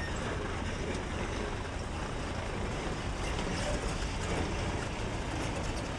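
Heavy diesel trucks running, a steady low rumble with no distinct events.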